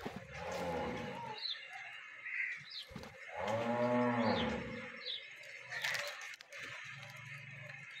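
A large animal's low, drawn-out call lasting about a second and a half near the middle, its pitch rising then falling, with weaker low calls near the start and near the end. Short high chirps sound on and off throughout.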